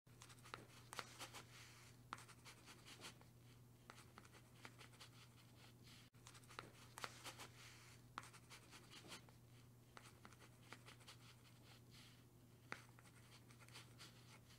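Faint marker pen scratching in quick, irregular writing strokes, over a low steady hum.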